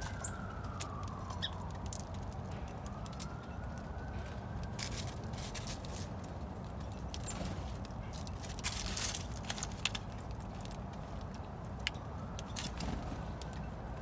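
Backyard ambience: scattered sharp clicks and taps, with a faint wail that rises and falls slowly about three times, over a steady low rumble.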